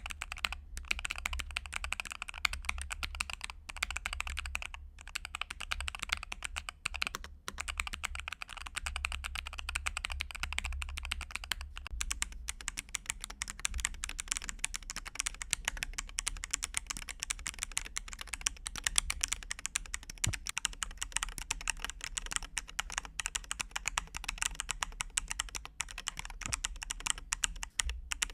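Continuous fast typing on a MelGeek Made series mechanical keyboard: a dense, unbroken stream of key clacks.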